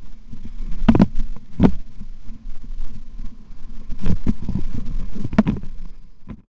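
Wind buffeting a helmet-mounted camera's microphone on a fast powder ski run, a steady low rumble with several sharp thumps as the skis hit the snow. The sound cuts off suddenly near the end.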